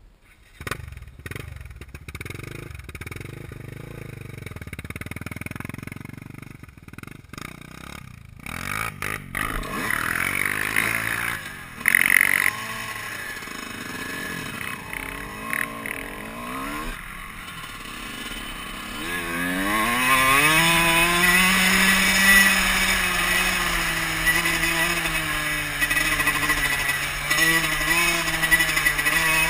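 Dirt bike engine heard from a helmet-mounted camera: quieter and uneven at first, with scattered knocks and one sharp knock about twelve seconds in. About twenty seconds in, the engine rises in pitch and then runs steadily as the bike rides along a dirt track.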